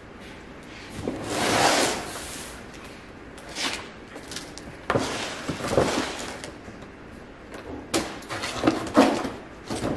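A knife slicing packing tape along a large cardboard shipping box, with the cardboard scraping and rustling in several separate strokes and a couple of sharp knocks.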